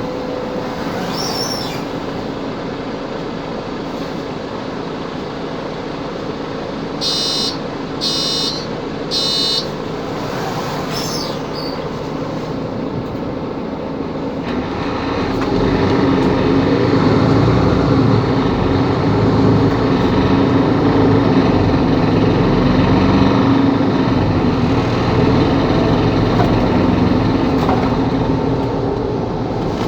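Mercedes-Benz Capacity L city bus running, with three short electronic beeps about seven to nine seconds in. About halfway through, the engine gets clearly louder and heavier and stays that way, as under acceleration.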